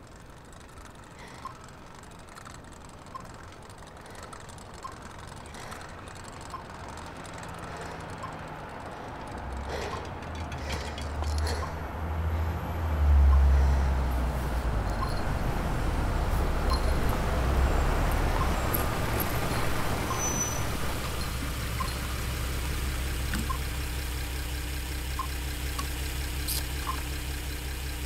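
A car engine comes up out of a quiet night street, loudest about thirteen seconds in, then settles into a steady low idle as the car sits stopped alongside.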